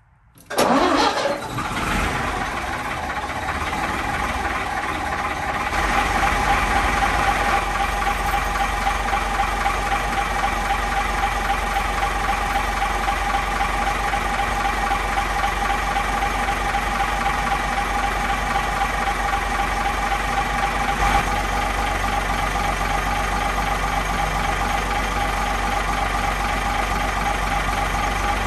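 Gardner 6LXB straight-six diesel engine of a 100 kVA generator set starting: it fires up suddenly about half a second in and then runs steadily. About six seconds in it grows a little louder, with a deep hum added.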